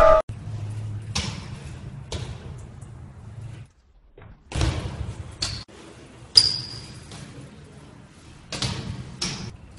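BMX bike hitting and landing on concrete, a string of sharp knocks and thuds that echo in an underground parking garage over a low hum. One impact about six seconds in gives a short high metallic ring.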